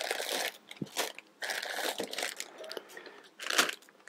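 Plastic toy-kit pieces being handled and sorted: rustling and scraping with a few sharp clicks as parts knock together.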